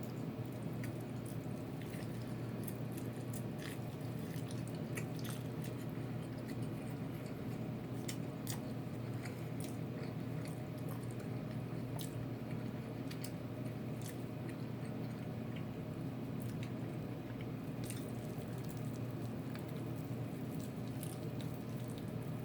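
A person chewing and biting into fried chicken close to the microphone: wet, squishy mouth sounds and scattered small crisp clicks, over a steady low hum.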